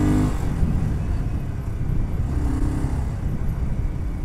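BSA Gold Star 650's single-cylinder engine and exhaust on the move: the climbing rev pitch breaks off just after the start as the throttle closes, then the engine runs on low and steady, with a short pitch rise again midway.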